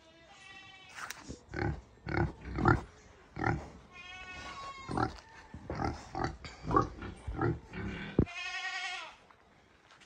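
Pigs grunting in quick short grunts, with three longer drawn-out high calls among them and a sharp knock about eight seconds in.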